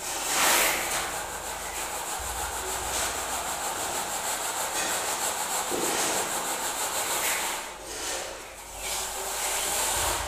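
Metal straightedge being dragged and worked back and forth across wet cement mortar to screed a floor level: a continuous gritty scraping, with a louder surge just after the start.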